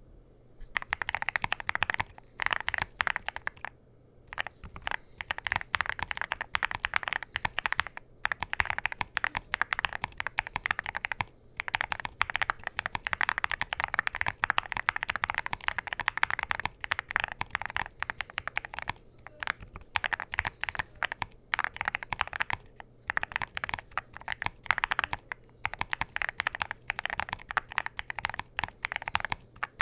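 Typing on a Qwertykeys QK80 MK2 custom mechanical keyboard with lubed Gateron Smoothie switches, a polycarbonate plate, Cerakey ceramic keycaps and a foam-filled aluminium case: fast runs of keystrokes broken by short pauses every few seconds.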